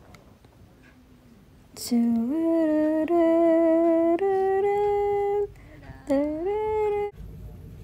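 A person humming a short tune: a few held notes that slide up into pitch and step higher, a short pause, then one last note that dips and rises.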